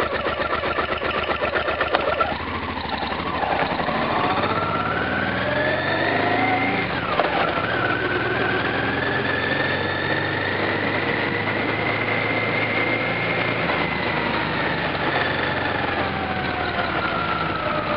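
Motorcycle engine heard from on board, ticking over with a rapid even beat, then pulling away. The engine note rises, dips sharply about seven seconds in, climbs again and holds steady, then falls away as the bike slows near the end.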